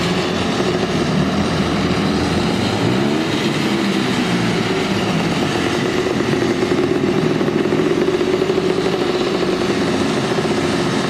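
Engine of a scaled-down mini car running as it is driven slowly, its pitch rising and falling with the throttle.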